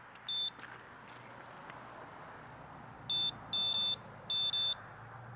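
Electronic carp bite alarm on a rod pod beeping: one short beep just after the start, then three more between about three and five seconds in, the last two longer. The beeps come as the rod is set on the alarm and the line is moved across its sensor.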